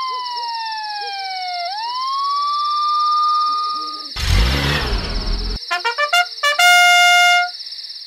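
Cartoon ambulance siren sound effect: a single wailing tone slides down in pitch and climbs back up, over a steady high whine. About four seconds in the siren gives way to a loud noisy burst with a deep rumble. Then comes a quick run of short stuttering tones and a held brass-like note, a short musical sting.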